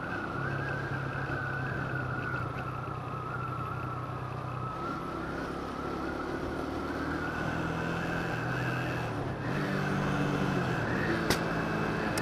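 Motorcycle engine running under way, with wind rushing over a helmet-mounted microphone; the engine note shifts a couple of times. Near the end comes a single sharp pop, a backfire from the exhaust.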